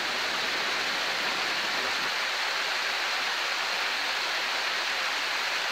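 Shallow stream running over stones in a stone-walled channel, a steady rush of water.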